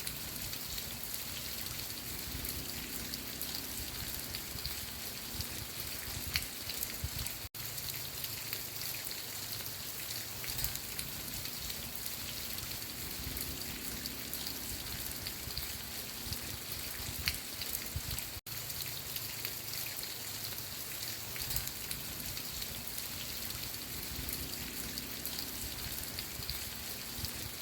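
Steady rain falling, with the patter of individual drops. It cuts out for an instant twice.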